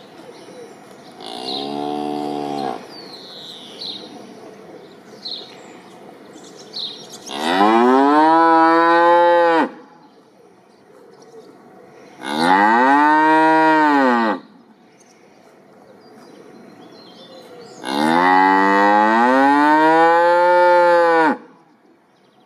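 Cow mooing four times: a shorter, quieter call about a second in, then three long, loud moos of two to three seconds each, each rising and then falling in pitch.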